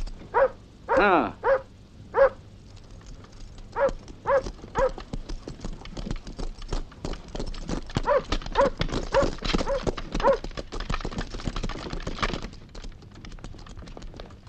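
A dog barking in short bursts of three to five barks, with one longer drawn-out bark about a second in. Horses' hooves clip-clop, thickest from about six seconds in until they fade near the end.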